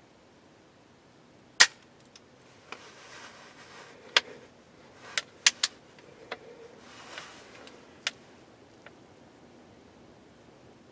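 A scattered series of sharp clicks or snaps, about eight of them, the loudest about a second and a half in, with faint rustling between them in the middle.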